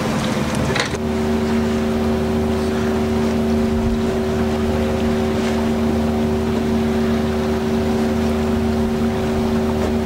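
Outboard motor running steadily, a constant hum that holds one pitch, over wind and water noise. The sound changes about a second in, where the steady hum sets in.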